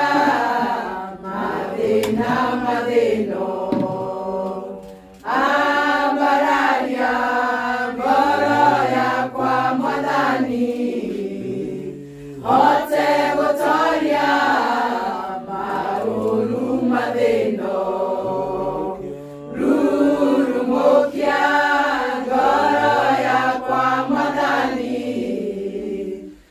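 A group of women singing together, unaccompanied, in long phrases with brief pauses for breath between them.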